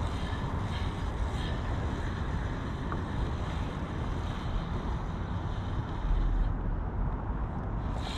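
Wind buffeting the microphone, a steady low rumble that swells with a stronger gust about six seconds in.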